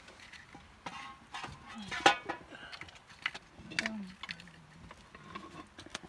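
Irregular scraping and clicking as roasted sheep meat is worked against a curved blade, with a sharp knock about two seconds in. A few short vocal calls come in between.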